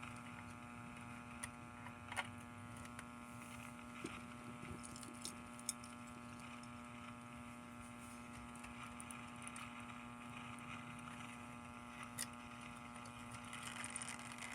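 Faint steady electrical hum from the vintage alarm clock radio's speaker, with a few light clicks scattered through.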